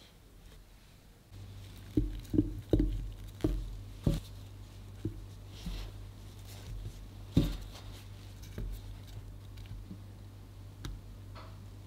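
Cut strawberry pieces being set one by one onto the cookie-crumb base in a cake pan: a quick run of soft pats, then a few more spaced out.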